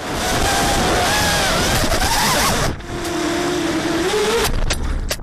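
FPV racing quadcopter's electric motors and propellers spinning up from the grass and flying: a loud rush of prop wash with whining motor tones that glide up and down as the throttle changes. Near the end, a quick run of sharp cracks.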